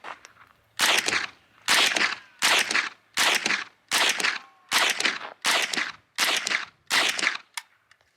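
Chiappa AK-22 semi-automatic .22LR rifle firing nine shots at a steady pace of about one every three-quarters of a second, each crack followed by a short echo. The rifle is cycling Armscor 36-grain hollow-point rounds with no malfunction.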